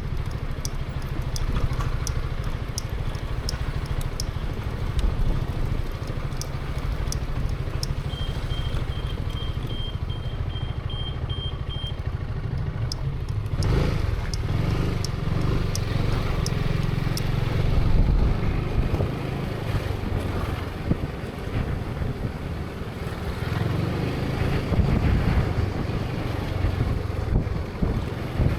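Zontes 350E motorcycle's single-cylinder engine idling steadily with a regular light ticking. About 13 seconds in it revs up and the bike rides on, the engine rising and falling with the throttle.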